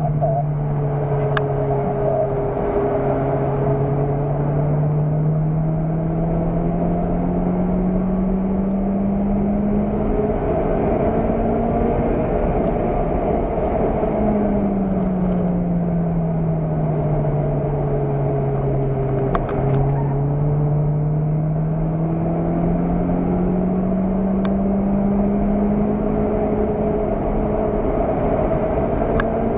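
Car engine heard from inside the cabin under hard driving, its note climbing steadily as the car accelerates, falling for about five seconds midway as it slows, then climbing again. Steady road and wind noise runs underneath.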